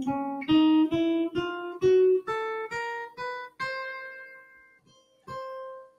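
Acoustic guitar played one note at a time: a one-finger-per-fret exercise (fingers 1-2-3-4) climbing stepwise up the neck at about three notes a second. In the second half the notes come slower and are left to ring.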